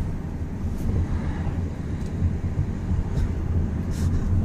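2014 Ford Focus driving, its engine and road noise making a steady low drone heard from inside the cabin, with a few brief faint high hisses about a second apart.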